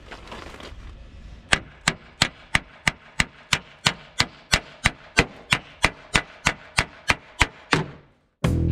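Sharp, evenly spaced knocks, about three a second, as a camper's side trim strip is tapped to slide it back along its track; music starts near the end.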